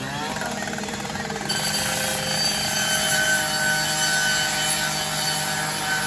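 A firefighter's power saw revving up, then cutting into corrugated metal: a steady motor hum, with a harsh, hissing cutting noise joining about a second and a half in and holding.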